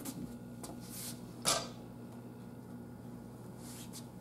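A few light clacks and knocks of training weapons being handled as a long blade is put down and a short training blade picked up, the sharpest knock about a second and a half in.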